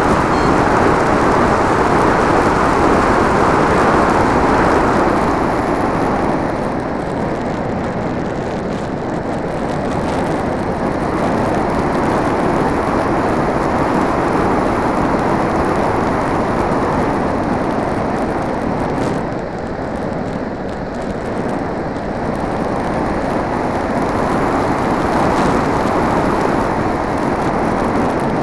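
Steady rush of airflow and motor noise on a camera riding aboard a Multiplex Blizzard RC plane in flight. It eases a little about six seconds in and again around twenty seconds in, then builds back up.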